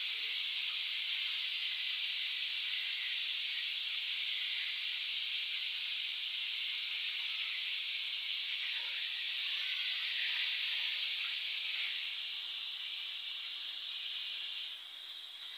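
Flour-coated chicken pieces deep-frying in hot oil in a kadai, a steady sizzle that eases a little near the end.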